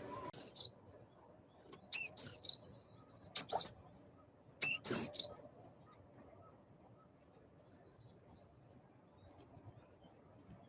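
Small wild bird calling at a feeder: four quick bursts of high, sharp chirps with falling sweeps in the first five seconds, then quiet background.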